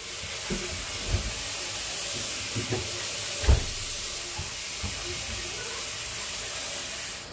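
Kitchen tap running water into a stainless steel pot of potatoes in the sink, a steady hiss that stops abruptly at the end, with a few knocks of the pot against the sink, the loudest about three and a half seconds in.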